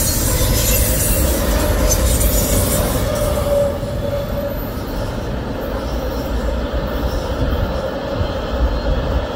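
Freight train cars rolling past on curved track: a steady low rumble of wheels on rail with a steady wheel squeal. About three and a half seconds in, the squeal stops and the train sound becomes quieter as the last cars move away.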